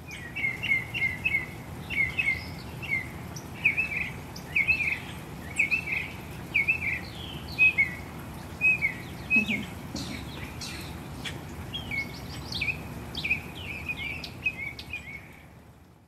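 A songbird singing a long run of short whistled notes, quick and repeated at first, then spaced about a second apart, with another quick flurry near the end. There is a steady outdoor hiss underneath.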